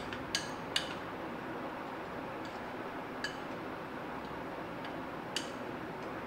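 Metal spoon clinking against a glass bowl while stirring dry crushed biscuit powder: three sharp clinks in the first second, then one at about three seconds and one at about five, over a steady background noise.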